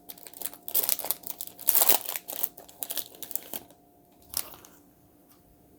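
Foil wrapper of a baseball card pack crinkling as it is torn open and handled. The crinkling is dense for about three and a half seconds, then there is one more short rustle a second later.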